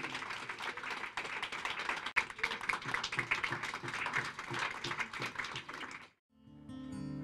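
Audience applause, a dense patter of many hands clapping, which cuts off abruptly about six seconds in. Acoustic guitar music starts just before the end.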